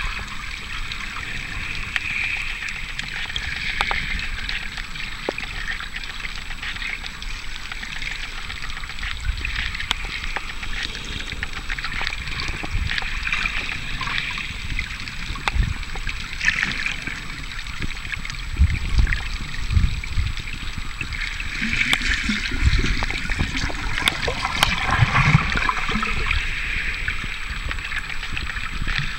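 Underwater ambient sound heard through a submerged camera: a steady hiss of moving water with scattered clicks and crackles, and low thumps of water against the camera that grow stronger about two-thirds of the way through.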